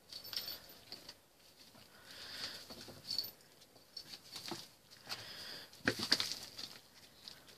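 Kitten moving about on newspaper: soft paw scuffling and paper rustling, faint, with a few light knocks, the loudest about six seconds in.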